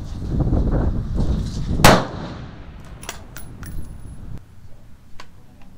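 A single shot from a 6.5 Creedmoor bolt-action rifle about two seconds in, over a low rumble. A few sharp clicks follow over the next seconds.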